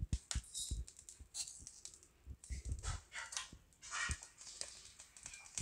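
Faint, scattered small clicks and light clinks of a steel spoon against a steel container.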